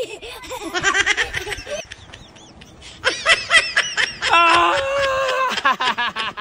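A person laughing in quick bursts. About four seconds in the laughter stretches into a long drawn-out cry, then breaks back into short laughs.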